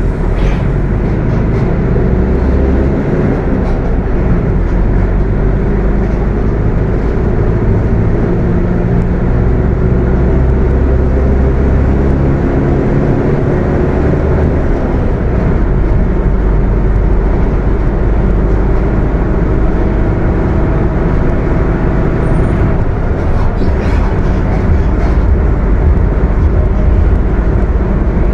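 Mercedes-Benz OF 1721 bus running under way, its engine rumbling with the transmission growling loudly on top. The pitch of the drivetrain tones rises and falls as the bus changes speed.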